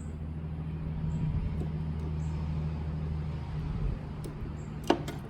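Chamberlain belt-drive garage door opener's motor running with a steady low hum as it drives the door through its travel, easing off about four seconds in, then a sharp click.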